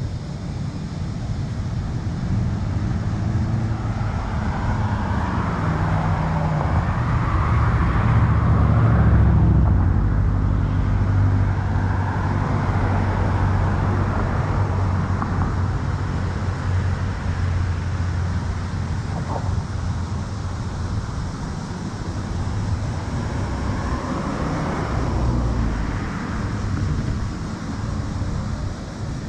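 Street traffic: cars passing on the road over a steady low rumble, one swelling up and fading about a third of the way in and another near the end.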